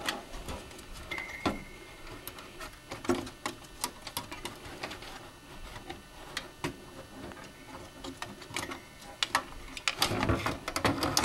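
Irregular clicks, taps and knocks of computer parts being handled and fitted into a PC case, as a motherboard is worked into place among the cables.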